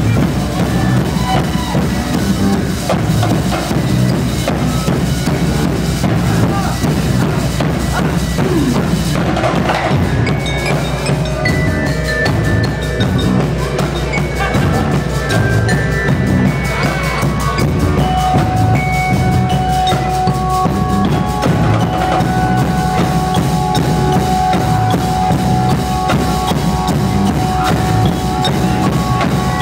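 High school marching band playing: drums and bass drum keep a steady beat, while mallet keyboard percussion and held notes from pitched instruments join in about ten seconds in and grow stronger midway.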